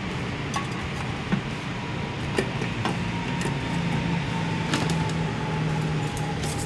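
Yamaha NVX 155 scooter's single-cylinder engine idling steadily, with a few light clicks.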